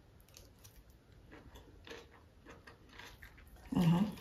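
A person chewing a mouthful of salad, with faint scattered soft clicks. Near the end comes a short hummed "mmm".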